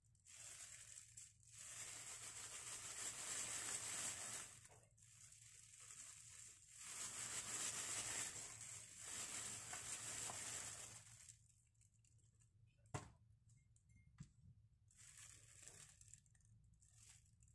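Thin disposable plastic glove crinkling and rustling in several long stretches as it is pulled onto a hand, followed later by a single sharp click and some fainter rustling.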